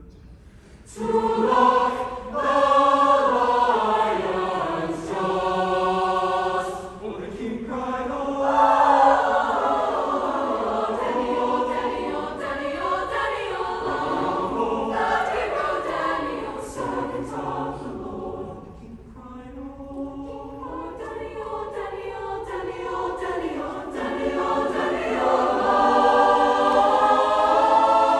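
A mixed-voice choir singing a song, entering about a second in, dropping quieter about two-thirds of the way through and building to its loudest near the end.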